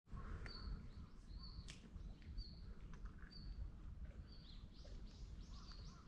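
A bird calling a short, high note over and over, about once a second, with other brief chirps in between, over a faint low rumble of outdoor background noise.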